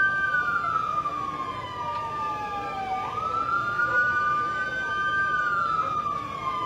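Ambulance siren wailing slowly: its pitch falls over about three seconds, jumps back up about halfway through, climbs and begins to fall again, over a second steady held tone.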